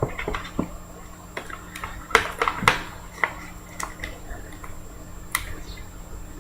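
Handling a thick trading card and a hard plastic card case: scattered sharp clicks and taps of plastic, with a few louder snaps about two seconds in, just before three seconds and again past five seconds.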